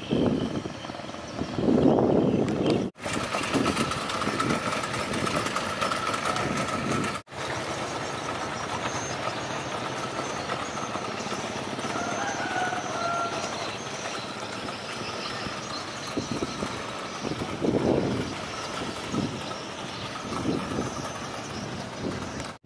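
Steady engine drone with a faint held whine, broken by low gusts of wind buffeting the microphone; the sound drops out abruptly twice.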